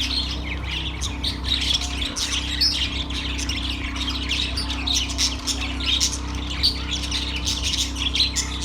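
Several budgerigars chirping and chattering continuously in quick, overlapping calls, over a steady low hum.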